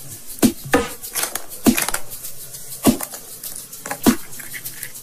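Small toy nesting egg being handled and opened in the fingers: a few sharp clicks and taps, irregularly spaced, as its halves knock and come apart.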